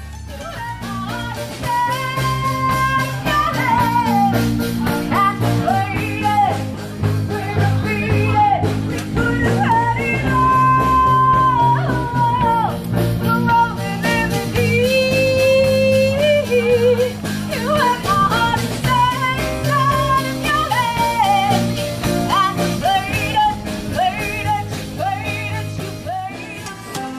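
Live band performing a song: a woman singing lead over electric guitar and bass guitar.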